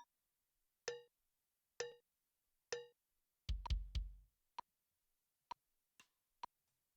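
A count-in of four evenly spaced sharp clicks about a second apart, then a short cluster of drum hits with a deep thud, followed by a few scattered single clicks, just ahead of the song's start.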